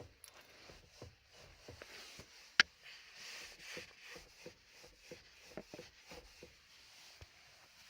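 Knocking in the steering of a Skoda Rapid with the engine switched off: a run of short, dull knocks, about two a second and uneven, with one sharp, much louder click about two and a half seconds in. It is an unexplained steering knock, present even without the engine running.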